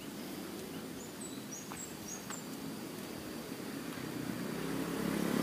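Small birds give a few short, high chirps in the first half over steady outdoor background noise. A motorcycle engine approaches, growing louder near the end.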